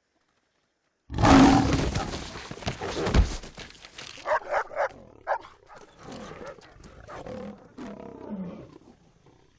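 Lion roar sound effect that comes in suddenly and loud about a second in, then fades over several seconds. Three short, sharp calls follow at about four and a half seconds, and lower growls falling in pitch come near the end.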